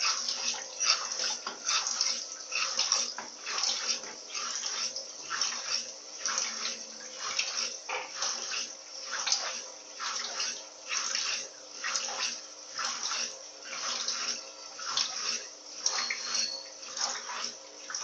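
Electrolux Turbo Economia 15 kg top-loading washing machine spinning a heavy load on its spin cycle, with water being flung out of the basket and draining: a rhythmic swishing about twice a second over a faint steady hum. The tub runs without banging against the cabinet.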